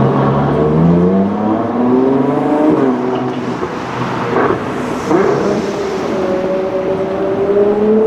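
Ferrari 812 Competizione A's naturally aspirated V12 accelerating away. The revs climb and drop back at an upshift twice, with two sharp cracks midway, then settle into a steady note.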